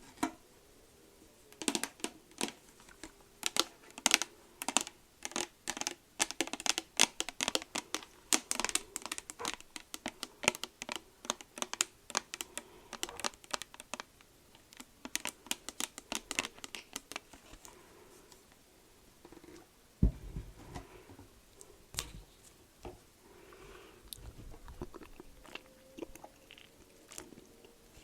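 A rapid run of sharp, crisp clicks and crunches close to the microphone, thinning out after about eighteen seconds, with one sharp knock about twenty seconds in and softer rustling after it.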